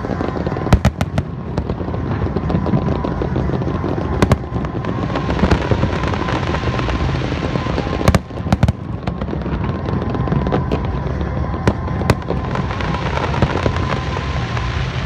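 Aerial fireworks going off: a continuous rumble and crackle, with repeated sharp bangs, several loud clusters of them spread through.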